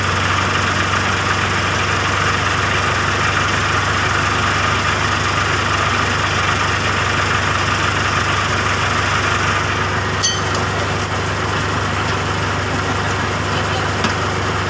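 Heavy-equipment diesel engine idling steadily with an even low rumble. A single sharp click about ten seconds in.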